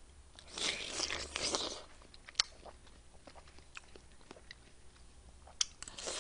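A person eating watermelon punch close to the microphone: a stretch of wet chewing and biting starting about half a second in and lasting just over a second, then scattered small clicks, and more chewing near the end.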